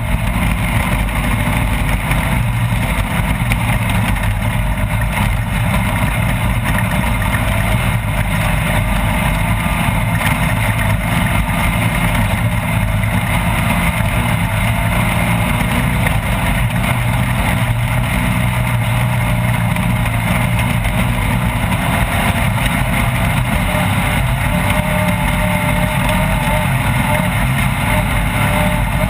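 Off-road race vehicle's engine running continuously while under way, a loud steady drone with the pitch wandering slightly as the revs change.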